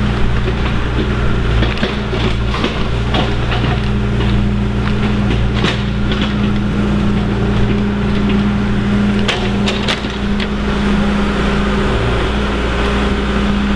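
An engine running steadily with a low, even hum, with scattered crunches and snaps on top, the clearest about six and ten seconds in.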